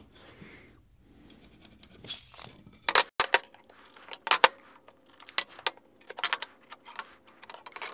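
Scattered sharp taps and clinks from a tape measure and a metal speed square being handled and set down on a table saw's metal top while boards are marked with a pencil.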